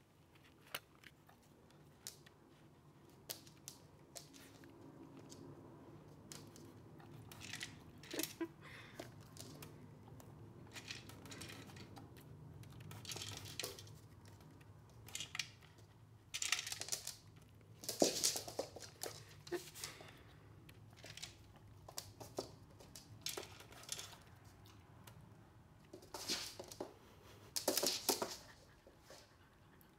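Golden retriever puppy eating dry kibble from a plastic slow-feeder bowl: irregular bursts of crunching and of kibble rattling against the plastic, with the loudest bursts a little past halfway and near the end.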